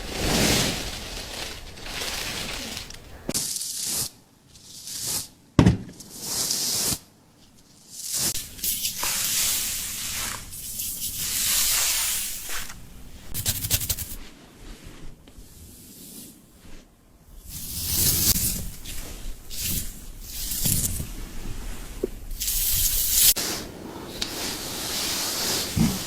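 Hair-cutting sound effects: irregular bursts of hissing, crunching noise as long hair is cut off, some short and some running a second or two, with quieter gaps between.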